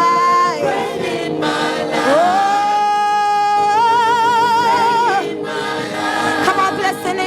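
Church choir singing, with one voice holding a long note from about two seconds in that breaks into vibrato and stops just after five seconds.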